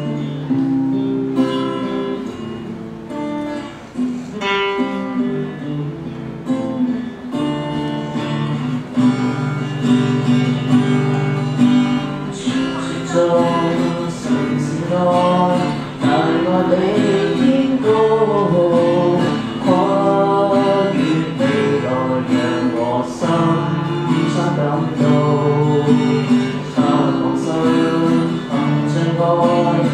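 Acoustic guitar strummed in a steady chord pattern. About twelve seconds in, a solo voice starts singing a slow song over it.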